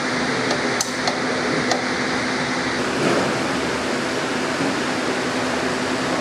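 Steady whir of a pedestal fan with a low hum, and a few light metallic clicks from hand tools in the first two seconds.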